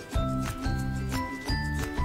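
Background music with a steady beat: a bass line changing notes about twice a second under short, light high notes.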